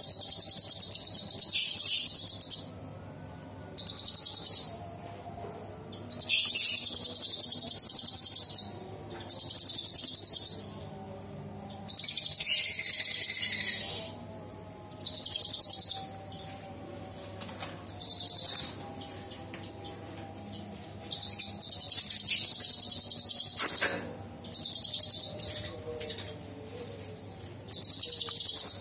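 A caged cucak cungkok (blue-winged leafbird) singing loud, very high-pitched bursts of rapid, tightly packed notes. There are about ten phrases, each one to three seconds long, separated by pauses of about a second.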